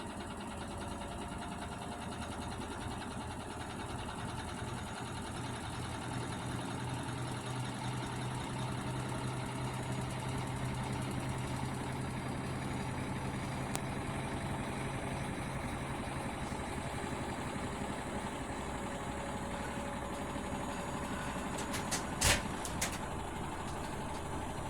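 Hotpoint Aquarius washing machine running: a steady motor hum with a mix of whirring tones. A couple of sharp knocks come near the end.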